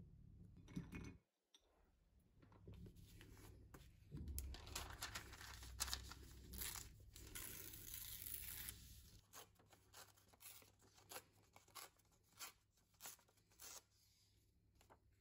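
Paper being torn by hand: sheets of old printed book pages ripped into strips, a long stretch of scratchy ripping, then shorter separate rips and rustles about twice a second near the end.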